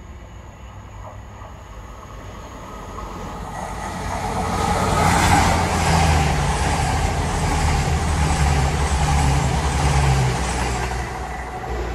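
A Class 222 Meridian diesel multiple unit passes close by. Its underfloor diesel engines and wheels on the rails build to a loud peak a few seconds in, hold there, then fade near the end.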